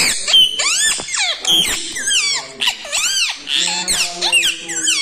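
Pet green parakeet calling from its cage: a quick run of high squawks and chirps, each one rising and falling sharply in pitch, several a second.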